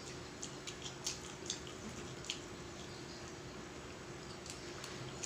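Faint wet mouth clicks and smacks of someone eating and drinking close to the microphone, a scattering of soft ticks a few times a second.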